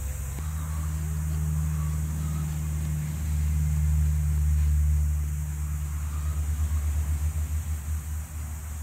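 Low, steady engine hum, stepping up about half a second in and pulsing with a regular beat near the end.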